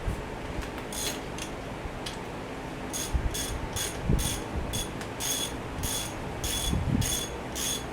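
Hand ratchet wrench clicking as it is swung back and forth, loosening a bellhousing bolt on a Chevy 216 engine. After a few scattered clicks, the clicking settles about three seconds in into a steady rhythm of about three clicks a second.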